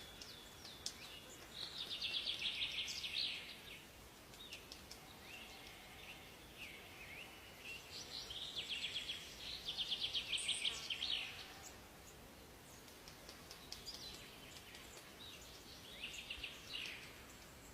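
Songbirds singing: fast, buzzy trilled phrases lasting a second or two come a couple of seconds in, again around the middle and near the end, with scattered short chirps and whistles between them over a faint hiss.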